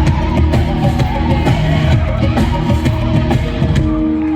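Live band music with a steady drum beat, about two beats a second, in an instrumental passage between sung and rapped lines.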